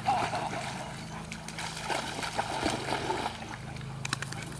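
Dogs swimming in a pond, paddling and splashing water as they go after a ball; the splashing is loudest at the very start.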